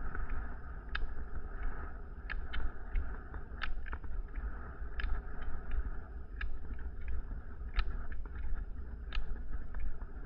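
Rollerski pole tips clicking on asphalt in a steady rhythm, about one sharp click every second and a half, with fainter taps between, over a steady low rumble of wheels on pavement.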